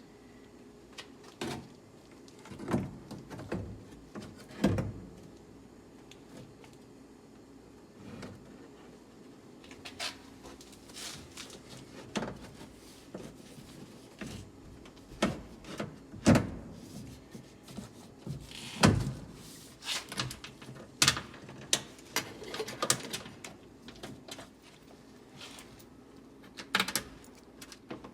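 Irregular clicks, knocks and light rattles of metal and plastic parts and hand tools being handled while a car door's window mechanism and internal parts are put back together.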